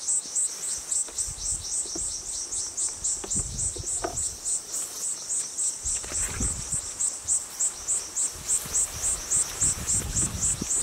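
Insects chirping in an even, high-pitched pulse, about four or five chirps a second, with faint low rustling of footsteps through tall grass underneath.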